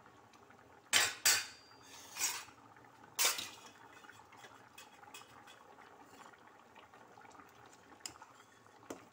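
Metal ladle clanking against a steel cooking pot four times in the first few seconds while stirring thick kootu, then quieter stirring with a couple of light taps near the end.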